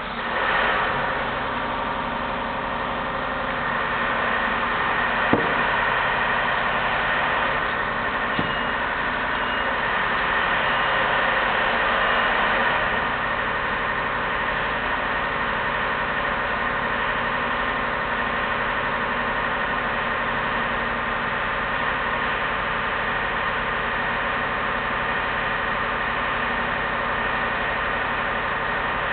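A machine starts abruptly and runs with a steady, engine-like hum, with two sharp clicks a few seconds in.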